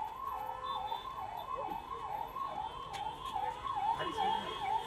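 Electronic siren wailing in a fast, even rise and fall, about two to three sweeps a second.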